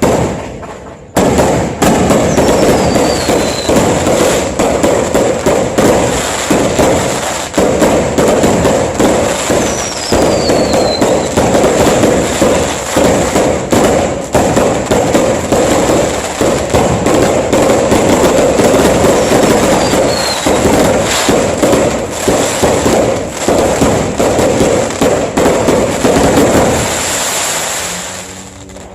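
Dense New Year fireworks barrage: a continuous run of overlapping bangs and crackles that starts suddenly about a second in and dies away near the end, with a few short falling whistles from whistling rockets among the bursts.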